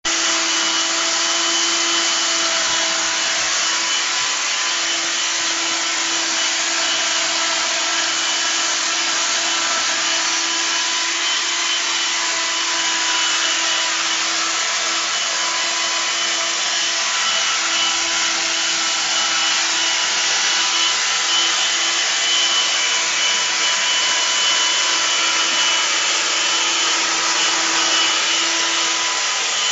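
Handheld vacuum cleaner running steadily with a constant motor whine, its nozzle worked through a cat's fur.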